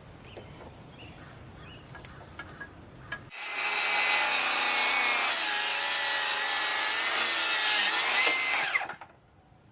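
Bandsaw mill blade cutting through a cedar flitch, starting about three seconds in, running steadily with a ringing pitched tone for about six seconds, then stopping abruptly.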